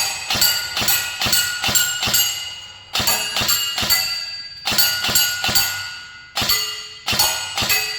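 Battery-powered INF M4 airsoft rifle fired in quick strings of single shots, the pellets striking a target that rings metallically with each hit. The hits come about three a second, broken by short pauses.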